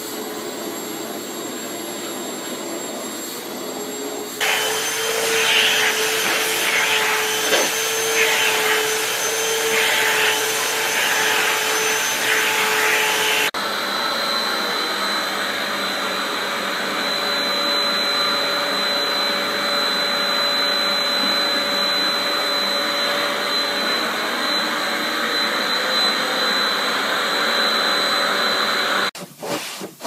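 Vacuum cleaners running steadily with a whine, their nozzles and brush attachments being drawn over cats' fur. The pitch and character of the motor noise change abruptly about four seconds in and again about thirteen seconds in. Near the end it turns choppy.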